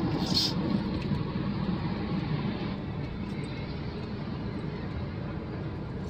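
Steady road and engine noise inside a moving car's cabin, a low rumble that eases slightly over the seconds, with a short high hiss about half a second in.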